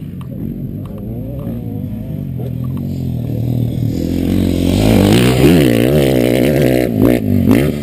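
Motocross bike engine running at idle, then revved up and down repeatedly from about four seconds in, getting much louder, with a couple of sharp knocks near the end.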